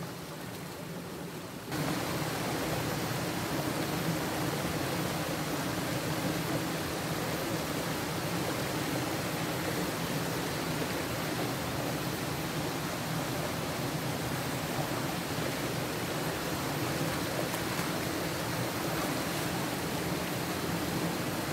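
Steady rush of flowing spring water, which jumps louder and brighter about two seconds in and then holds even.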